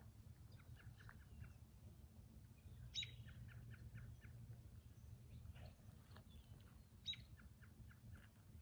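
Faint songbirds singing outdoors. One song comes twice, each time a sharp high note followed by a quick run of short chirps, over a low steady rumble.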